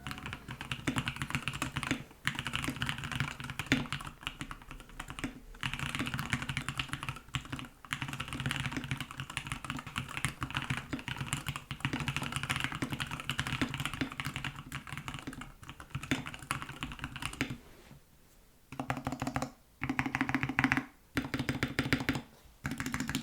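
Typing test on a Savage 65 mechanical keyboard with Lavender switches and Esper keycaps, its case modded with three layers of tape and polyfill. It is a fast, continuous run of keystrokes, then a short pause and a few separate bursts of typing near the end.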